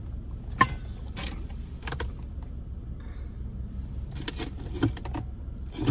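A few sharp clicks and knocks of small objects being handled inside a car, over the car's steady low rumble.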